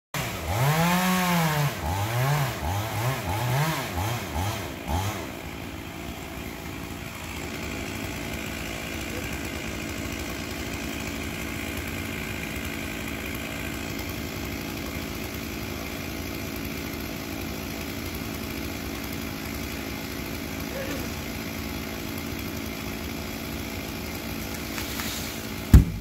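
Chainsaw revving: one long rev, then about five short ones that fade over the first five seconds. A steady engine idle follows. Just before the end comes a single loud thud as the felled tree trunk hits the ground.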